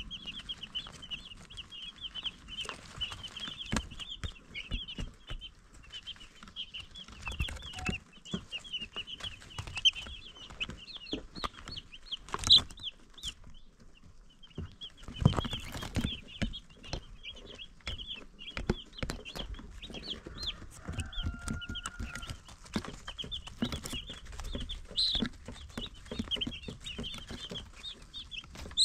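A group of baby chicks peeping continuously in rapid, high-pitched cheeps, with scattered light knocks and scuffles among them. The peeping pauses briefly about halfway through, between two louder knocks.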